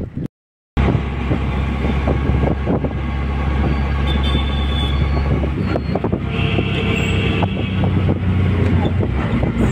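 Auto-rickshaw engine running steadily with road noise, heard from inside the passenger cabin, starting just under a second in.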